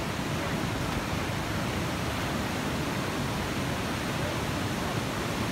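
Water rushing steadily from a dam's open sluice gates into foaming rapids below.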